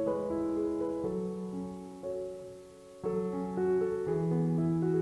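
Background piano music, slow sustained notes and chords, with a brief lull just before a new phrase about three seconds in.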